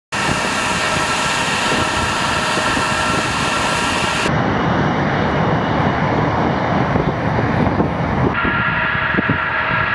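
Jet engines of a Tupolev Tu-160 bomber running at high power: a loud, steady rush of engine noise, with high whining tones over it at the start and again near the end. The sound changes abruptly twice, about four and eight seconds in.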